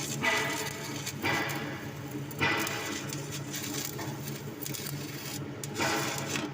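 Stick-welding arc crackling and hissing steadily as a 7018 rod burns, swelling roughly once a second, over a steady low hum.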